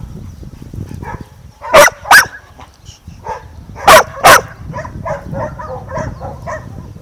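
Dogs barking: two pairs of loud, sharp barks, the first about two seconds in and the second about four seconds in, followed by a run of softer short yips.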